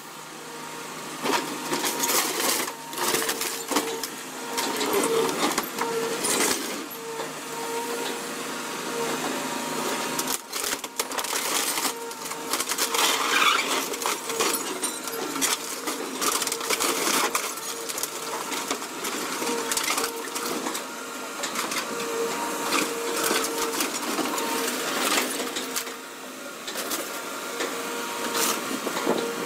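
Scrap-handling excavator's grapple crushing and tearing the sheet metal of a car's front end: frequent crunches, cracks and scrapes of bending metal over a steady tone from the machine.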